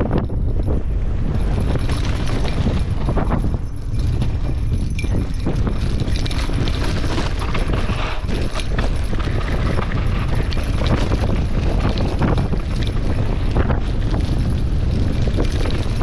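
Heavy wind buffeting the microphone, a steady low rumble, over scattered knocks and rattles from a bike rolling down a rough dirt trail.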